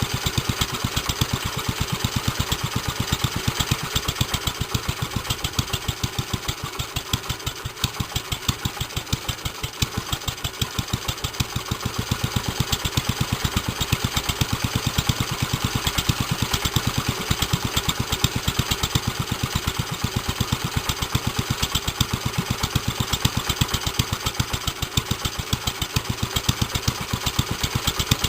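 1946 JAP Model 5 single-cylinder side-valve four-stroke petrol stationary engine running unloaded at a steady, even firing beat, with its governor locked off. The fuel has just been turned off to stop it, so it is running on what is left in the carburettor.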